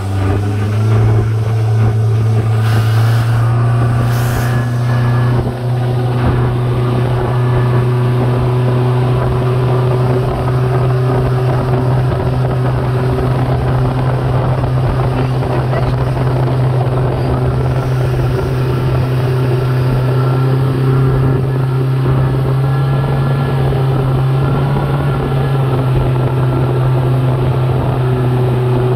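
Tow speedboat's engine running steadily at speed, its pitch stepping up slightly about a second in, with the rush of the wake and wind.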